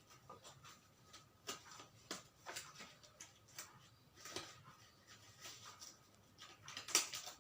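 Rustling and light clicks of personal protective equipment being handled and put on. The sounds come at irregular intervals, with the loudest rustle near the end.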